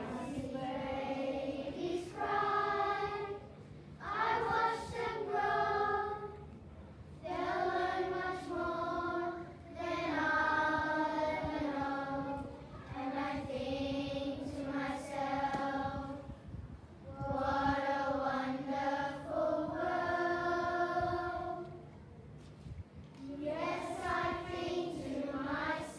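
Children's school choir singing, in held phrases a few seconds long with short breaks for breath between them.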